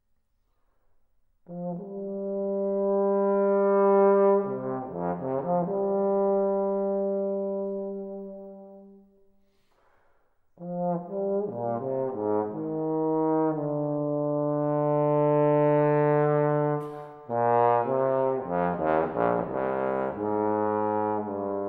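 Unaccompanied bass trombone playing slow solo phrases. A long held note swells and fades with a quick run in the middle; after a short pause, further phrases move lower with quick runs.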